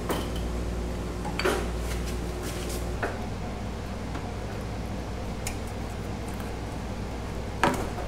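A few metallic clinks and knocks of engine parts being handled: one just after the start, a cluster about a second and a half in, one at about three seconds, and the sharpest near the end. Under them runs the steady buzz of a shop air conditioner.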